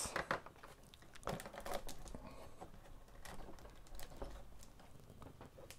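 LEGO plastic bricks clicking and knocking as a throttle-lever assembly is pressed and snapped onto a LEGO Technic base: a string of small, irregular plastic clicks.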